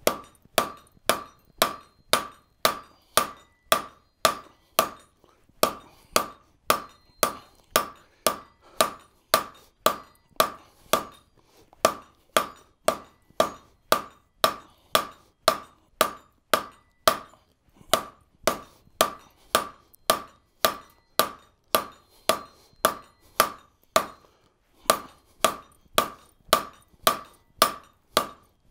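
Hand hammer striking hot steel on an anvil at about two blows a second to draw out the bar, each blow with a short ring. The hammering breaks off briefly a few times.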